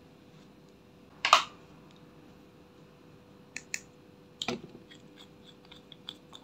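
A sharp clack about a second in, then a few clicks and a run of small ticks as a glass nail polish bottle is handled and its cap twisted off.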